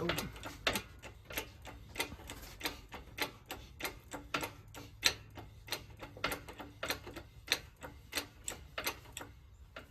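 Hydraulic shop press being hand-pumped, its pump mechanism clicking evenly, under two strokes a second, over a low hum. The clicking stops shortly before the end.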